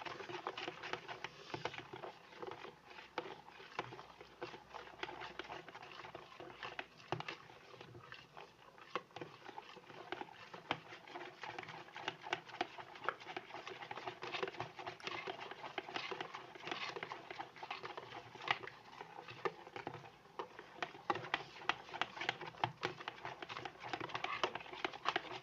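A spoon stirring a runny mix of clear glue and borax water in a container: a steady run of small, irregular clicks and wet scrapes. The mixture is still thin like water and has not yet thickened into slime.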